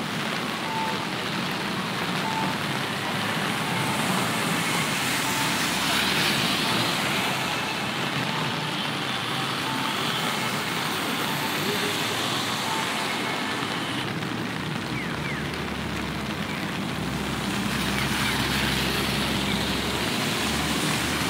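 Steady hiss of rain and wet city traffic on a busy street, recorded binaurally. A short electronic beep repeats about every 0.7 seconds and stops about halfway through.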